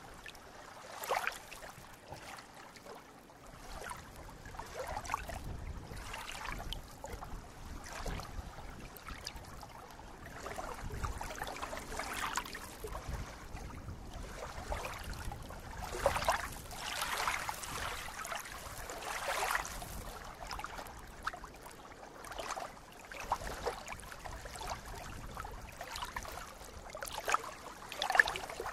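Shallow water rippling and lapping at the shore in soft, irregular splashes every second or few, over a steady wash.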